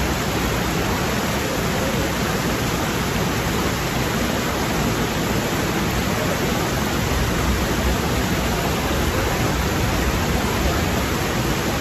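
Rocky stream rushing over boulders and small cascades, a steady, even rush of water that does not change.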